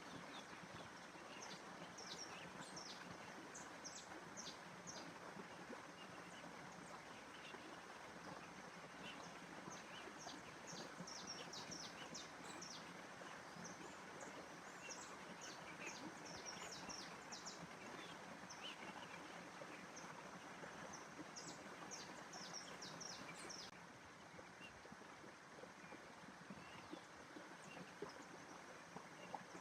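Faint nature ambience: many birds chirping in short high notes over a steady rushing background noise. The chirping thins out near the end.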